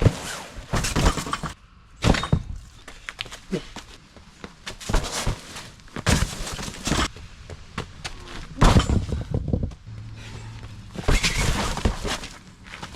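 A string of heavy crunching thuds and footfalls on the ground, spaced one to three seconds apart, from a sledgehammer thrown overhand and landing, with running steps.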